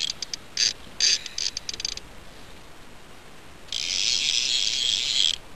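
The ratchet clicker of a boat rod's multiplier reel, sounding as a fish pulls line off. It gives a stutter of separate clicks over the first two seconds, then a steady buzzing run of clicks from about the middle until shortly before the end.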